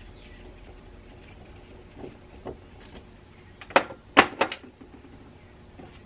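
Small parts clicking and clacking against a work surface as a chainsaw carburetor is taken apart. Two soft knocks come about two seconds in, then a quick run of four or five sharp clacks about four seconds in.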